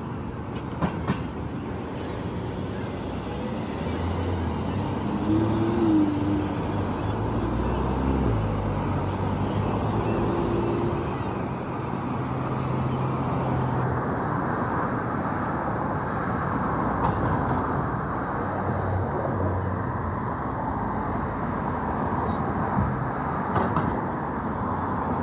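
Steady low rumble of city vehicle traffic, with a vehicle's drone shifting pitch a few times in the first half.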